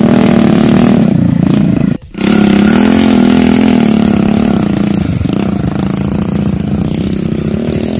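Dirt-bike engines running loudly, the pitch wavering as the throttle is worked, with a sudden break about two seconds in before the engine sound picks up again.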